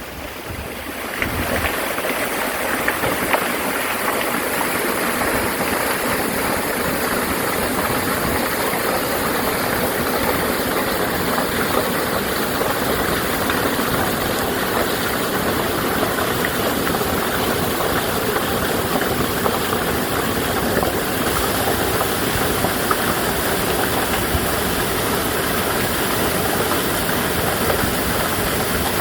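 Mountain stream rushing over rocks: a steady, even flow of water that fades in over the first second.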